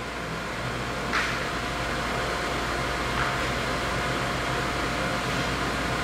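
Atlantic HDE200X12 200-ton press brake running idle: a steady motor and hydraulic pump hum, with a sharp click about a second in and a fainter one near three seconds.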